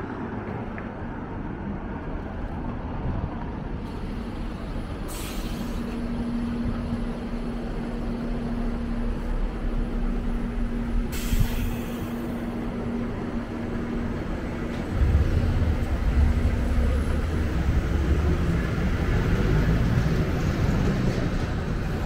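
Elizabeth Line Class 345 electric train running: a continuous low rumble with a steady hum through the middle, two brief hisses, and the rumble growing louder in the last third.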